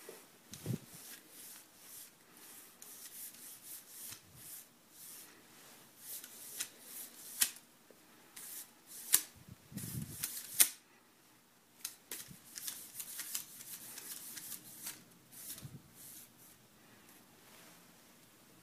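Wooden craft-stick scissor linkage with pin-and-cap joints being stretched out and folded back by hand: the sticks clack together and the joints click in an irregular patter, with a few sharper knocks around the middle.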